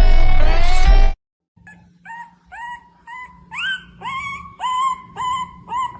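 Electronic music with sweeping pitch glides cuts off abruptly about a second in. Then a dog whines in a run of short, high-pitched cries, about two a second, each rising at its start.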